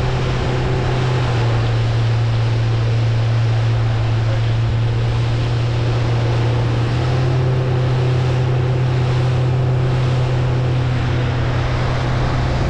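A center-console fishing boat's engine running at steady speed under way, a constant low hum, over the rush of wind and water against the hull.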